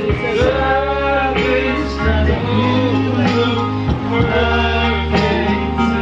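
Karaoke: a woman and men singing into microphones over an amplified backing track with a steady bass line, the singing amateur and somewhat off-key.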